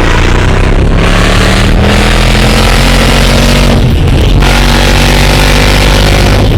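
A vehicle's engine running under load with loud road noise, its pitch climbing, falling back about four seconds in, then climbing again.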